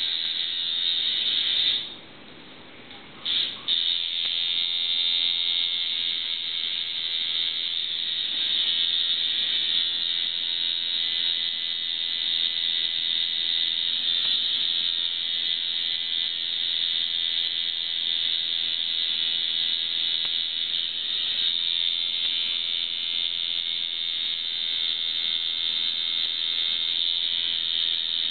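Tattoo machine buzzing steadily. It cuts out about two seconds in, gives a short blip, and starts again a second and a half later.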